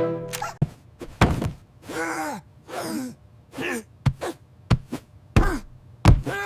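Cartoon sound effects: about seven sharp thunks, with about four short, voice-like sounds between them whose pitch slides downward.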